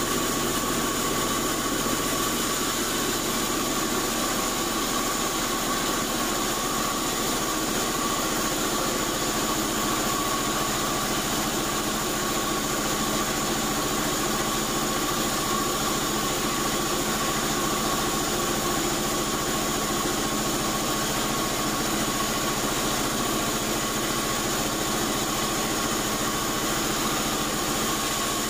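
Large vertical band saw running steadily while its carriage feeds a slab of old acacia wood through the blade: an even mechanical drone with a steady high tone over it.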